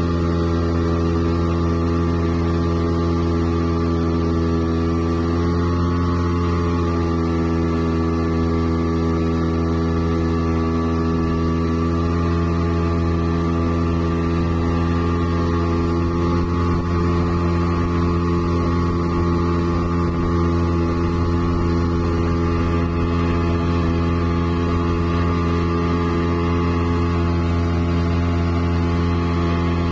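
40-horsepower outboard motor running steadily at speed while towing, a low, even drone that holds its pitch throughout, with the rush of the wake behind it.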